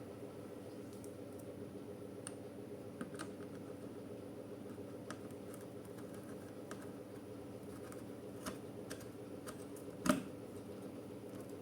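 Scattered light clicks and taps of small hardware being handled, with one louder click about ten seconds in, over a steady low hum.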